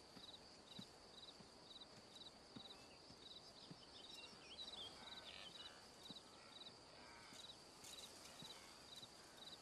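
Very faint dusk savanna ambience: an insect chirps in short three-pulse bursts about twice a second over a steady high insect drone, with a few faint calls in the middle.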